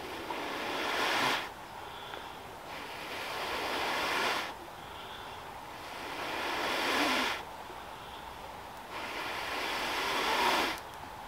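A person blowing long, steady breaths into a smouldering tinder bundle to coax a bow-drill ember into flame: four blows, each growing louder and then stopping abruptly.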